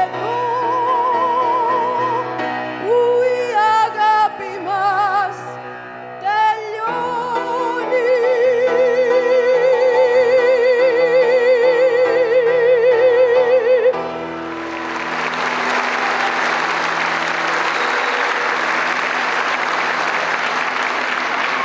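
A woman sings the last phrases of a Greek song with wide vibrato, accompanied by piano, accordion and guitars, ending on a long held note about two thirds of the way through. The audience then breaks into steady applause.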